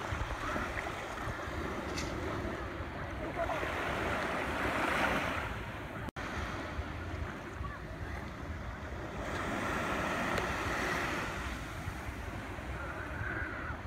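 Surf washing in, a steady rush that swells and ebbs twice, with wind buffeting the microphone. The sound cuts out for an instant about six seconds in.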